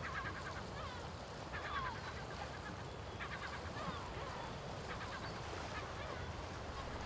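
Birds calling in short bursts of harsh, pitched calls every second or two, over a steady low background noise.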